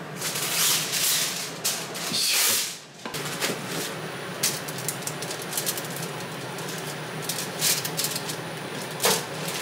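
Aluminium foil sheet in a frying pan crinkling, with light clicks and taps as split, dried horse mackerel are laid onto it by hand. Louder rustling at the start.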